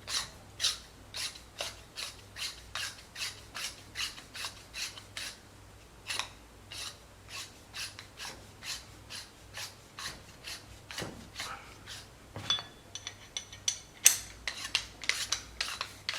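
Metal-on-metal rasping strokes, about two or three a second, as the suppressor's retaining nut is screwed back down over the spring-loaded monoblock. Near the end there is a brief metallic ring and a sharper clink.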